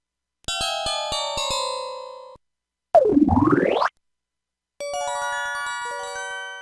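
Three short system tones from a PT-S140 mobile phone, played on its Yamaha YMU765 (MA-5) synthesizer chip and taken straight from the line output. First comes a chime of bell-like notes that die away. Then a one-second synth sweep falls and rises again, and last a chord builds note by note and fades out.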